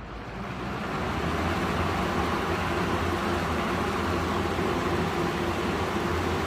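20-inch Galaxy box fan (model 3713) starting up on high speed: the rush of air builds over about the first second, then runs steady with a low motor hum.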